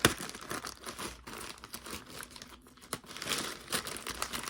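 Packaging bag crinkling and rustling as it is handled and pulled open, with a few sharp snaps, the loudest right at the start, and busier crinkling about three seconds in.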